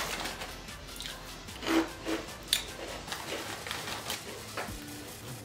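Plastic snack bag rustling and a crunchy puffed potato snack (Potato Boom) being chewed, heard as scattered short crackles and clicks, under faint background music.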